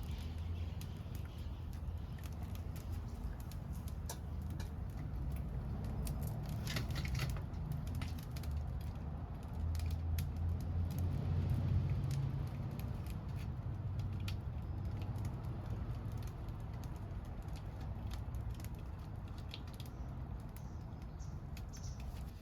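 Scrap-wood bonfire crackling, with scattered sharp pops over a low, steady rumble of the burning fire.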